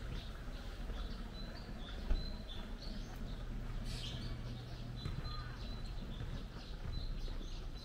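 Small birds chirping repeatedly in short high notes over a low steady hum, with a single thump about two seconds in.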